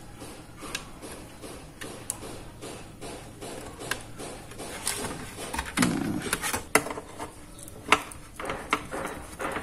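Hands handling a DVR's sheet-metal case and a hard disk: small clicks and knocks as SATA cables are pushed into the drive, then a heavier thump about six seconds in as the case is turned over and set down. Sharp metallic clicks follow as a screwdriver and the drive's mounting screws are fitted through the underside.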